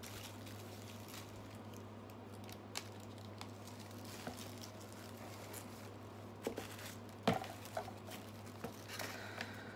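Products and packaging being handled by hand: scattered soft clicks, taps and rustles, with one louder knock about seven seconds in, over a steady low hum.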